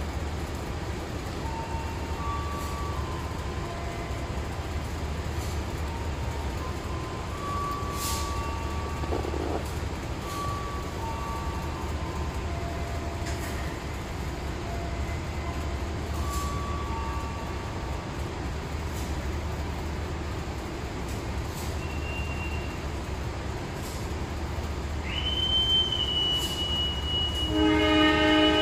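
CC201 diesel-electric locomotive idling with a steady low rumble. Near the end a long high whistle sounds, then the locomotive's horn blows a loud chord of several notes: the departure signal.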